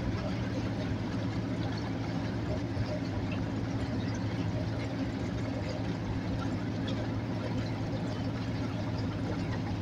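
Outboard motor running steadily, pushing a small aluminium boat through the water, with an even hum that holds one pitch throughout.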